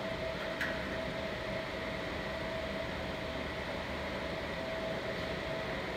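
Steady machine hum with a constant mid-pitched tone and a fan-like hiss, with one light click about half a second in.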